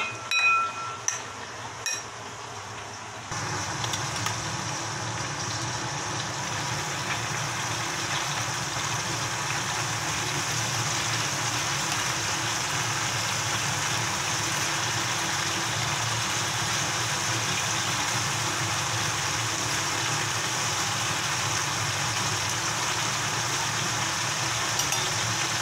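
Beef-and-mushroom rolls sizzling steadily in oil in a frying pan, starting suddenly about three seconds in. Before that, a couple of short metallic rings from a stainless steel bowl being knocked while the marinade is mixed by hand.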